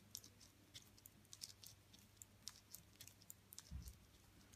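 Faint, irregular light clicking of metal knitting needles as knit stitches are worked, several ticks a second, with a soft low bump near the end.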